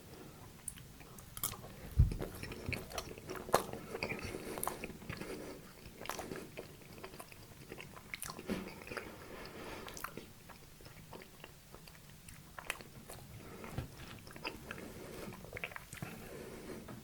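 Close-miked eating of a sweet dessert cake: irregular bites and moist chewing with small crunches and mouth clicks, the sharpest bite about two seconds in.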